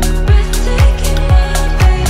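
Background music with a steady beat: a kick drum about twice a second over held bass notes.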